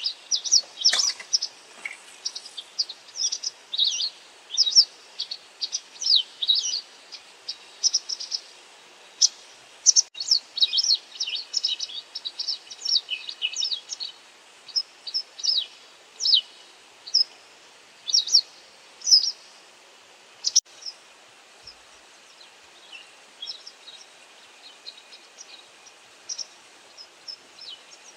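White wagtail giving its short, sharp contact calls (ground calls) over and over, closely packed for about twenty seconds, then fewer and fainter toward the end.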